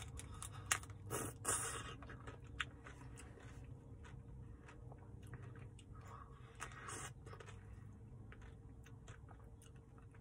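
Close-up eating sounds: biting through the hard cherry dip coating of a soft-serve cone, with crunching and chewing. The loudest bites come about a second in and again around seven seconds.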